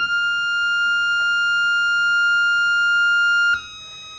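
A single held electronic tone, steady and loud, that drops to a quieter, slightly lower tone about three and a half seconds in.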